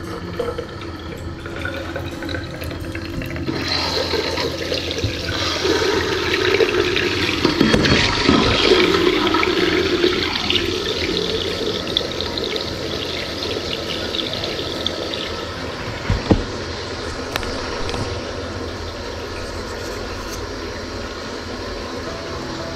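Water from a mixer tap running into a ceramic basin and gurgling down the pop-up waste into the plastic trap, as the new waste is tested for leaks. It starts a few seconds in, is loudest in the middle and eases off after about fifteen seconds. A single sharp knock comes about sixteen seconds in.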